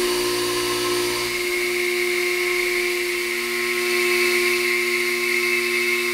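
End mill on a CNC milling machine cutting hard metal: a steady whine of several held tones with a hiss under it.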